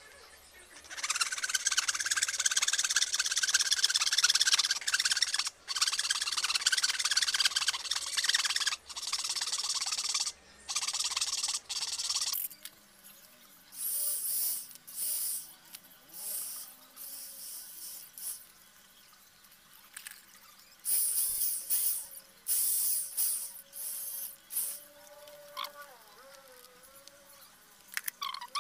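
Blade scraping and paring a teak chain link, a steady rasping for about eleven seconds, then a series of shorter scraping bursts.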